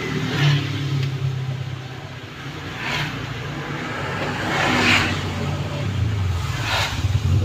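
A motor vehicle engine running with a steady low hum, with noisy swells about three seconds in, around five seconds in and again near the end.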